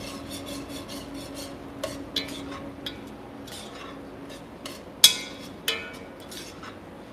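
A utensil stirring and scraping a thick sauce in a large pot, with repeated short scrapes and clicks and two sharper knocks against the pot about five seconds in. The tomato paste is being cooked into the sauce. A steady low hum runs underneath.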